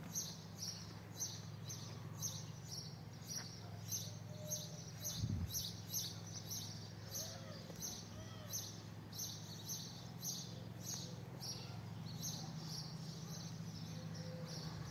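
Footsteps on paving stones, an even scuffing step about twice a second, over a steady low hum.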